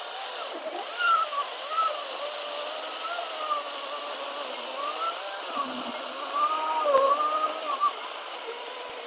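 Cordless 40 V electric chainsaw running and cutting pine, its motor whine dipping and rising in pitch as the load on the chain changes.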